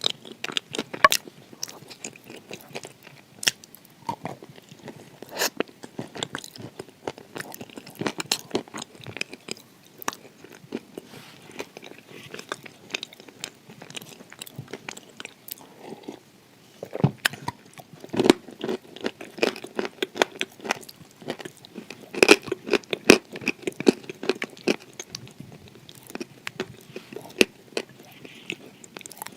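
Close-miked biting and chewing of dry, baked edible clay: a steady run of sharp crunches and crackles as the pieces break between the teeth, loudest and densest in the second half.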